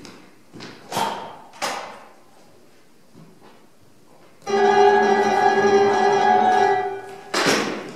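A held chord of several steady tones, starting suddenly about halfway through and sounding for about two and a half seconds before it stops. Short rushing noises come before it and one louder one just after it.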